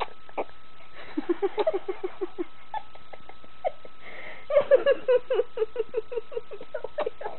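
A person laughing in quick runs of short "ha" sounds: a brief run about a second in, then a longer, louder run from about halfway that slows toward the end.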